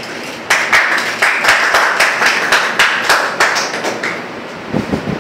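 Ice rattling and knocking inside a metal cocktail shaker shaken hard, about three sharp knocks a second. The shaking stops about four seconds in, and a few dull knocks follow near the end.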